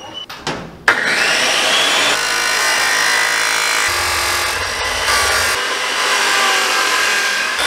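Abrasive chop saw switched on about a second in, its whine rising as the wheel spins up, then running steadily as it cuts through 4-inch PVC pipe. A few knocks come first, as the pipe is set against the saw.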